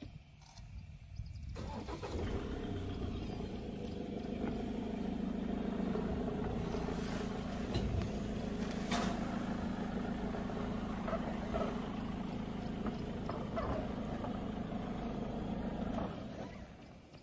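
Vehicle engine idling steadily, starting about a second and a half in and cutting off near the end.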